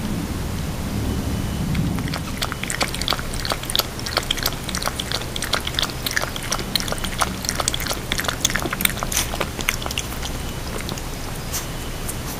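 Havanese puppy making rapid, irregular clicks and taps, typical of gnawing or scrabbling at the bars of its pen. A low rumble fades out about two seconds in.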